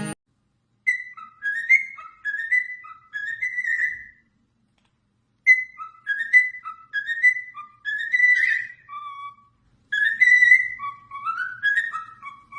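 A parrot whistling a tune: three short phrases of stepping, gliding notes, separated by brief pauses.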